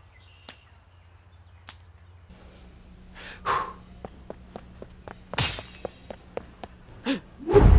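Cartoon sound effects over a low room hum: a run of light, evenly spaced footsteps with a few louder hits and a crash or breaking sound among them. Just before the end a loud burst of sound begins.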